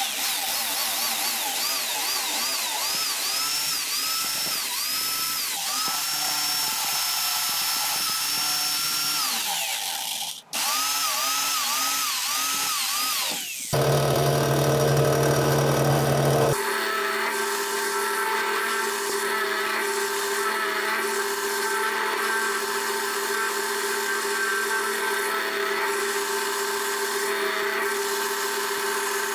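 Electric jigsaw cutting wood, its motor whine dipping and recovering over and over as the blade loads up. About 14 seconds in, a bench drill press takes over with a steady motor hum as it bores holes into a wooden block.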